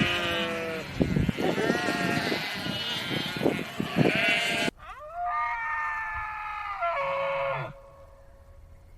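Bleating farm animal: a long, harsh, ragged call for about the first five seconds, then, after a sudden break, a clearer, steadier bleat lasting about three seconds that ends a little before the close.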